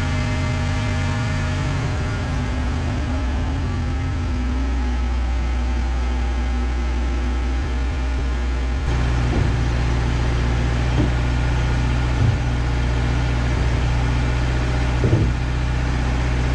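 Wood-Mizer LT15 Wide sawmill's engine running steadily between cuts, the blade not in the wood. A few light knocks in the second half as a sawn board is handled.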